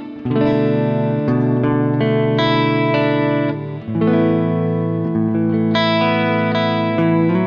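Clean electric guitar through a Friedman Runt 20 amp's cab-simulated output, with EQ, compression and reverb added. Ringing chords change about a quarter second in and again around four seconds in.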